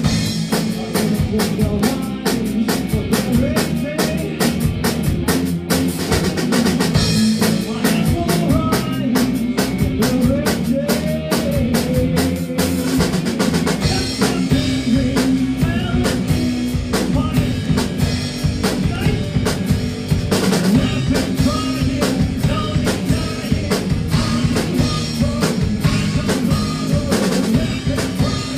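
Rock band playing live on amplified electric guitars and a drum kit, with busy, steady drumming throughout.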